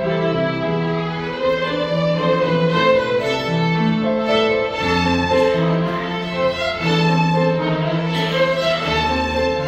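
A group of violins playing a melody together, with grand piano accompaniment underneath.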